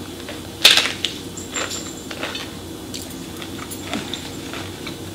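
Biting into a crisp fried corn tostada shell topped with chicken salad: one loud crunch about two thirds of a second in, then a few softer crunches as it is chewed.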